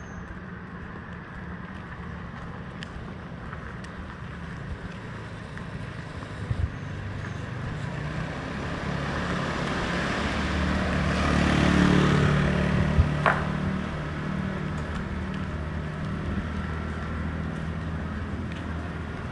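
A motor vehicle passing: its engine and tyre noise build slowly to a peak about twelve seconds in, then fade. A sharp tick follows just after the peak.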